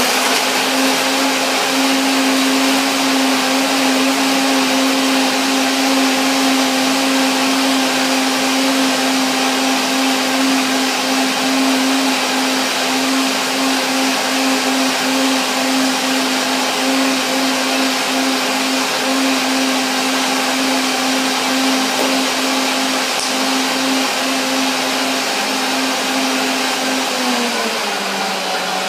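High-powered countertop blender running at high speed, blending a thick smoothie of banana, spinach, cashews, dates and water: a loud, steady motor whine with a whirring rush. Near the end the motor pitch drops slightly as it slows.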